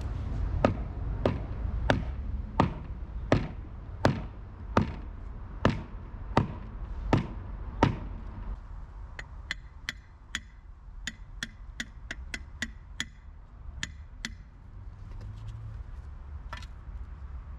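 A club hammer striking a wooden board set on the top edge of a flat asbestos-cement sheet, driving the sheet into sand as foundation formwork: about eleven heavy, evenly spaced blows, roughly one every 0.7 seconds. From about nine seconds in, lighter, quicker taps with a slight ring follow.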